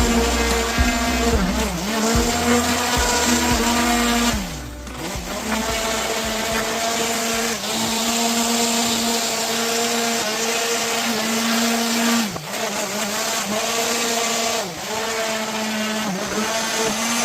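Electric woodworking power tool motor running steadily. Its pitch sags and recovers about six times, as the motor is loaded by cuts into the wood.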